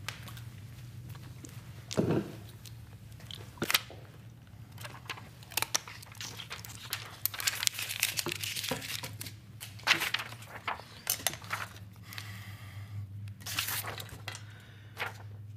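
Crinkling rustles and scattered sharp clicks and knocks of things being handled at a desk, with a denser stretch of rustling about halfway through, over a low steady hum.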